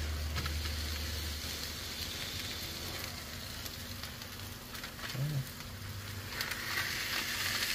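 Pork sausage sizzling on a hot Blackstone flat-top griddle, with the hiss growing louder in the last second or so as another sausage ball is pressed flat under parchment paper with a metal burger smasher.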